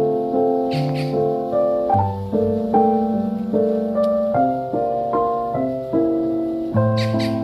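Background piano music: a gentle melody of single notes and soft chords at an even, unhurried pace.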